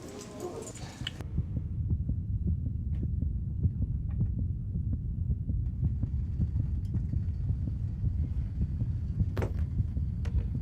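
A low throbbing hum starts about a second in and keeps going, with a few faint clicks over it.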